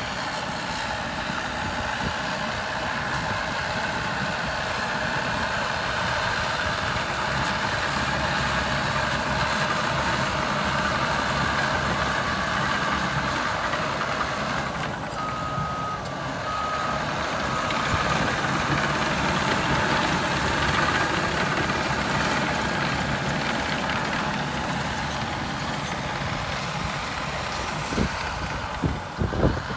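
Caterpillar D6R2 bulldozer's diesel engine running steadily while working. About halfway through, a reversing alarm beeps three times, and a few loud knocks come near the end.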